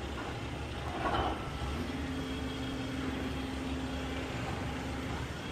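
Semi truck's diesel engine idling with a steady low rumble, a brief swell about a second in, and a faint steady tone joining it for a few seconds from about two seconds in.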